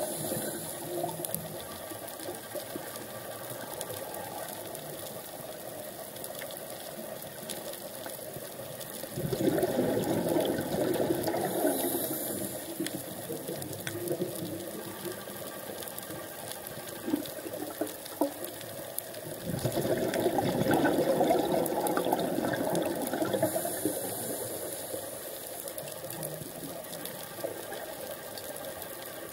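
A scuba diver's regulator breathing, heard underwater: two long gurgling bursts of exhaled bubbles, about ten seconds apart, each followed by a short high hiss as the diver breathes in. Between the breaths there is a steady underwater wash with scattered faint clicks.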